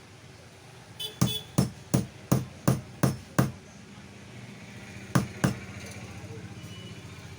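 Hammer tapping: seven quick sharp blows, about three a second, then two more a couple of seconds later.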